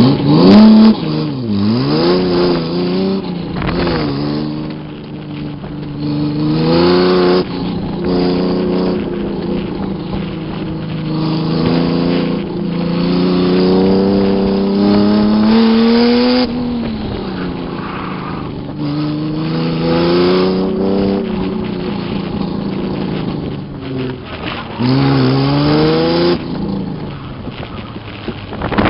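Stalker V6 roadster's V6 engine revving up and dropping back again and again as the car accelerates and lifts off between cones on an autocross run, heard from the open cockpit with wind rush. About halfway through a long pull climbs in pitch and then cuts off sharply.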